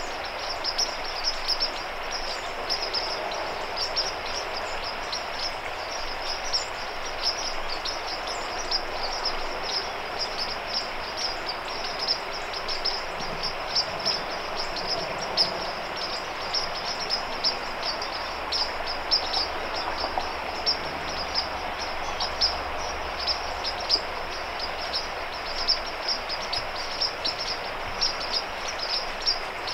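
Outdoor woodland ambience: a steady chorus of rapid, high-pitched chirps over a broad hiss.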